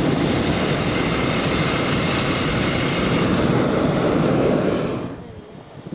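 Hot-air balloon's propane burner firing overhead, a loud steady blast that cuts off about five seconds in.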